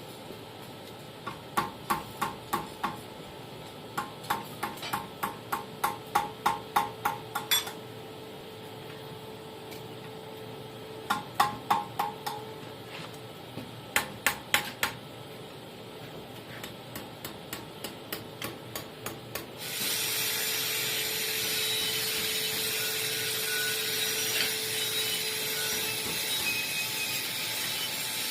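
Hammer tapping hot steel on an anvil in quick runs of ringing blows, about four a second, with pauses between runs, while a small steel fire striker is bent into shape. About twenty seconds in, a steady loud hiss starts abruptly and carries on.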